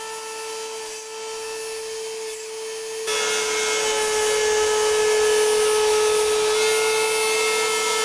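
CNC router spindle running with a 1/8-inch bit cutting mounting holes in acrylic sheet: a steady high whine. About three seconds in, a louder cutting hiss joins it.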